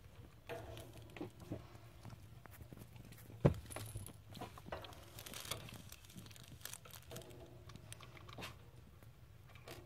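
Scottish fold kittens shuffling and scrabbling on a fleece blanket in a plastic cage tray: soft rustling and scattered small clicks, with one sharp knock about a third of the way in.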